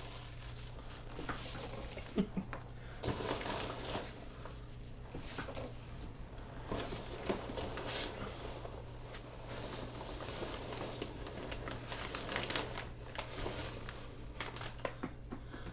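Packing peanuts and a plastic bag rustling and crinkling in short, irregular bursts as hands dig through a packed box, over a steady low hum.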